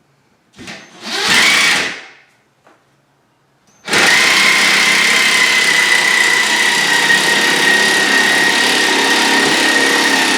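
Power drill driving a screw through the backing board into a wall stud: a short burst about a second in, then from about four seconds a steady run with a whine that drops slightly in pitch as the screw bites.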